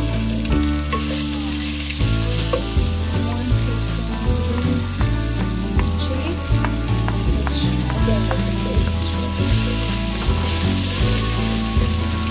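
Ginger and green chilli paste sizzling as they hit hot oil in a steel pot and are stirred with a wooden spatula. Background music with a steady beat plays over it.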